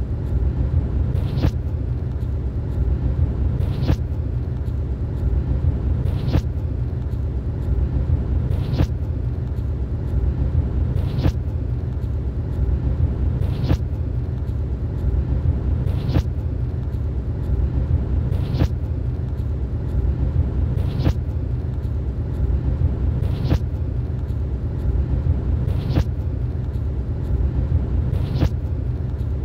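Steady low rumble of a moving vehicle heard from inside, with a short sharp click about every two and a half seconds.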